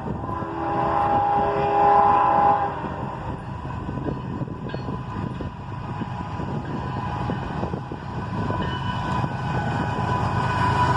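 Approaching freight train: the locomotive horn sounds a chord for about two seconds near the start. After it, the rumble of the GE diesel locomotives and the wheels on the rails grows louder as the train nears.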